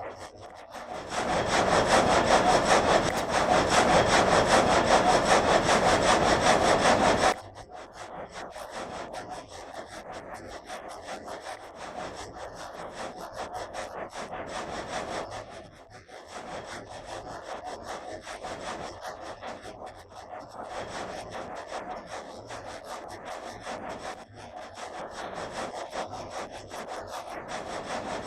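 Water-powered sawmill's frame saw cutting through a log: a loud, dense sawing noise that drops off suddenly about seven seconds in. It carries on quieter and rougher, with many short scrapes, and grows louder again near the end.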